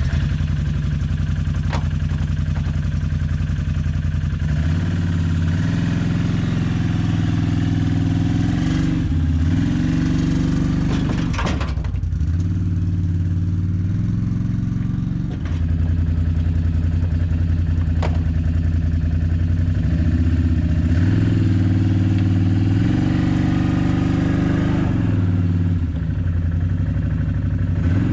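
Chainsaw engine starting and then running hard, its pitch dropping and recovering several times as it labours through a cut.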